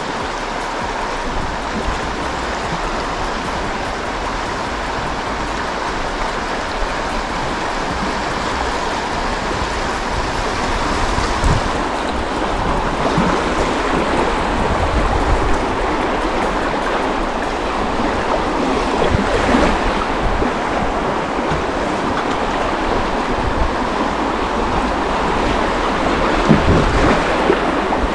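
Shallow river riffles rushing around a drifting kayak, growing gradually louder as the water gets rougher, with a few low thumps in the second half.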